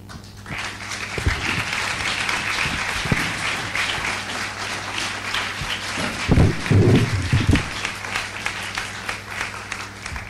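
Audience applauding: dense clapping starts about half a second in and thins out near the end. A few dull thumps come through about six to seven seconds in.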